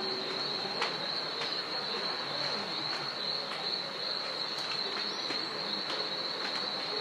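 Insect drone holding one steady high pitch over a background hiss, with a few faint ticks.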